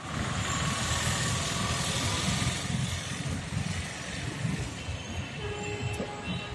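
Road traffic: a vehicle going past, loudest in the first two to three seconds, then fading to a lower rumble.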